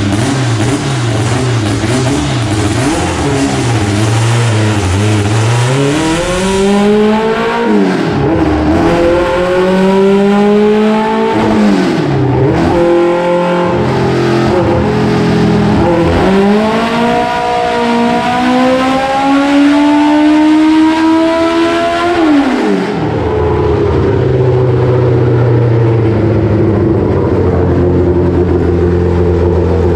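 Car engine on a chassis dyno, idling and then run up at full throttle in a dyno pull to test a new tune: the revs climb and fall back several times, and the last and longest climb lasts about six seconds before dropping sharply back to idle.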